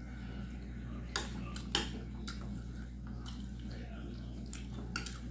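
Metal fork clinking and scraping against a glass plate of food, a handful of short, sharp clicks a second or so apart.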